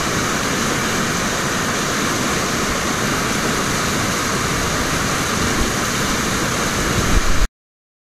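Steady roar of whitewater rushing through a big river wave, cutting off abruptly near the end.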